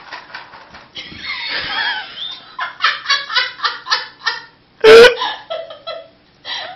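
Person laughing off-camera in quick repeated bursts, about four or five a second at its peak. A sudden very loud burst about five seconds in is the loudest sound.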